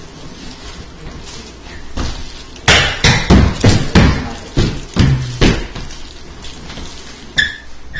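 A quick run of about nine loud knocks or bangs, roughly three a second, lasting about three seconds. A short high squeak follows near the end.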